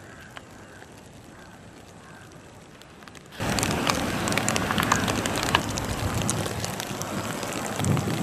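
Rain falling on a lake, with many sharp ticks of drops close to the microphone. It starts suddenly about three seconds in, after a faint hiss.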